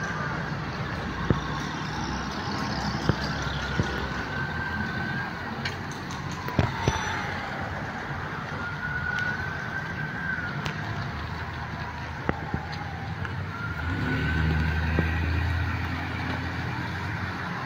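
A siren wails over a steady hiss of rain, its pitch slowly rising and falling about every four and a half seconds. Scattered sharp ticks are heard, and a low rumble swells briefly near the end.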